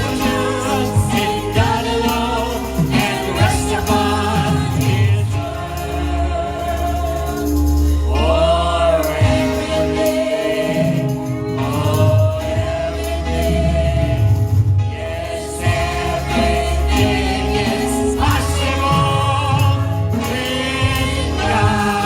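Gospel worship song: several voices singing together over band accompaniment with a steady bass.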